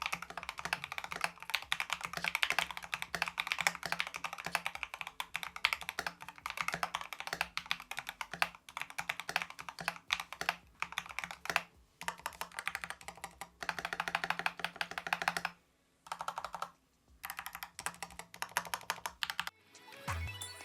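Typing on an Akko MonsGeek MG75 custom mechanical keyboard with Outemu switches and double-shot keycaps: a fast, dense run of keystroke clacks, broken by a few short pauses.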